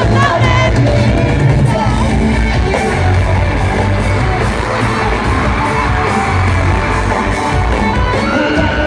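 Live rock band playing loudly through a big concert PA, with electric guitars, bass and drums and a voice singing, heard from within the crowd, with audience voices yelling along.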